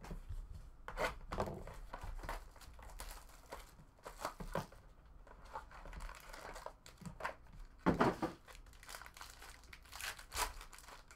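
Plastic wrapping crinkling and tearing as a sealed 2018 Topps Tier One baseball card box is opened and the wrapped pack inside pulled out: irregular rustles and crackles, loudest about eight seconds in.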